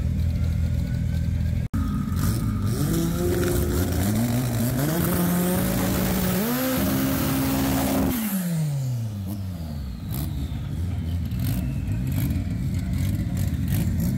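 Drag racing car accelerating hard down the strip, its engine pitch climbing in steps through several gear changes. About eight seconds in the pitch drops sharply and the sound fades, leaving a lower, steadier engine note.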